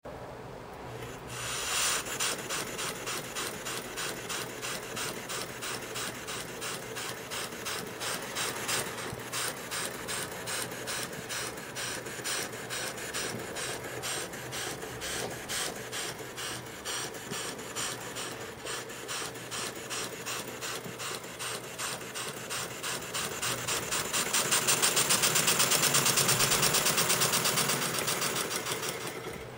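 Small motor running with a fast, even rattle of clicks. It starts about a second and a half in, grows louder and quicker around the last few seconds, then drops away near the end.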